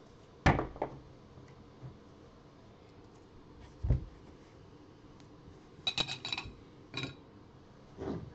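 Hard plastic clacking and clinking: a stack of rigid top-loader card holders and clear acrylic card stands being handled and set down. There are several separate knocks, with a quick cluster of ringing clinks about six seconds in.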